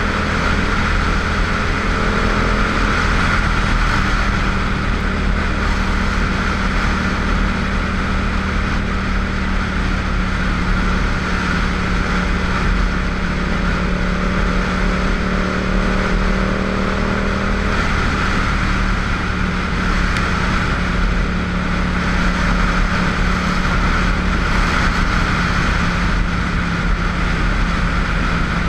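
Motorcycle engine running at a steady cruising speed, with a constant rush of wind over a helmet-mounted camera. The engine note dips slightly about two-thirds of the way through.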